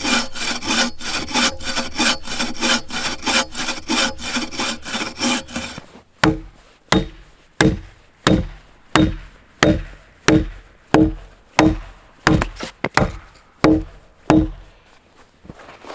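Hand saw cutting through a log in even strokes, about three a second. About six seconds in the sawing stops and a dozen heavy blows into the wood follow, roughly one and a half a second, each with a short hollow ring.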